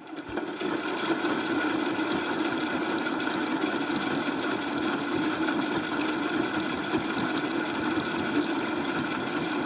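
Front-load washing machine running its drum-clean cycle, a steady hum of the motor with water churning in the turning drum.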